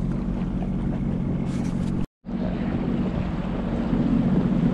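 Sea-Doo Fish Pro personal watercraft's 155-horsepower engine running steadily under way, a low hum with water washing along the hull. The sound cuts out for a moment about two seconds in.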